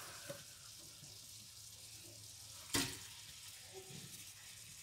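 Onions and chicken with freshly added chopped tomatoes frying in a steel pan, a faint steady sizzle. A single sharp knock a little under three seconds in.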